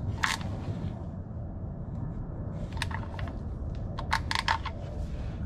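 Light clicks and taps of hand-tool work at an oil pan drain plug, a few near the start and a cluster about four seconds in, over a steady low hum.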